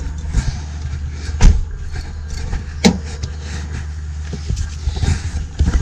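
Car engine running with a steady low hum, with a few sharp knocks over it, the loudest about a second and a half in.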